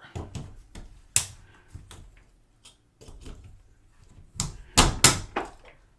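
Plastic lens housing of a digital camera being pried and cracked apart by hand: a sharp snap about a second in, then a quick run of loud cracks and clicks near the end as the part breaks.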